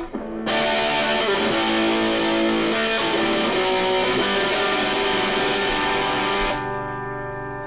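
Electric guitar chords played through two stacked overdrive pedals, a King of Tone clone and a TWE1 clone, switched in on a loop switcher. Near the end the sound drops in level and thins to a softer ringing chord as one drive loop is switched off.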